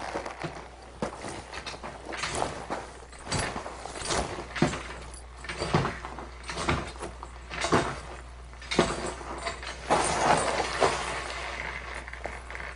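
A string of sharp knocks and scuffs, roughly one a second, with rustling and scraping between them.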